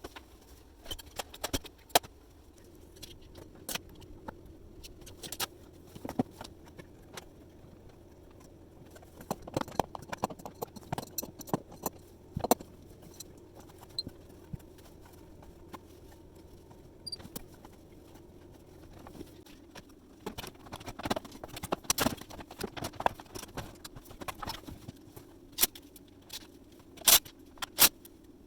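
Hand work on a built-in dishwasher: irregular clicks, taps and light clatter of parts and tools being handled, over a faint steady hum.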